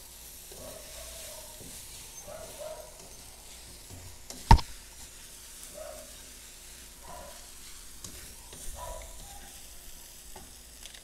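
Noodles being stir-fried in a steel wok on a gas stove: a quiet sizzle under a metal spatula scraping and turning them in strokes about once a second. One sharp clank rings out about four and a half seconds in.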